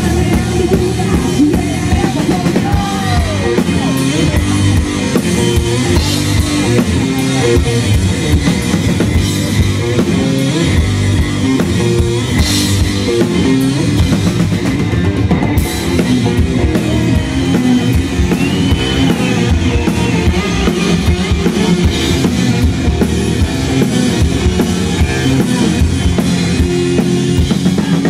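Live rock music played loud: a rock duo's drum kit hit hard and steadily under electric guitar, with no breaks.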